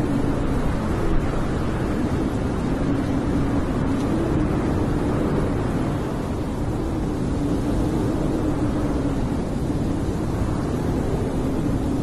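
Blizzard wind blowing steadily, a low rushing noise with a faint moan that rises and falls slowly.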